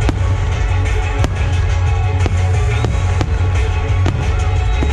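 Fireworks display: shells bursting with sharp bangs about once a second over loud music with a heavy bass.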